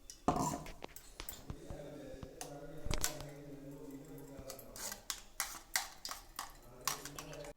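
Scraping and clicking against a coffee strainer as ground herbal leaf paste is pressed through it to squeeze out the juice, with a steady low hum underneath.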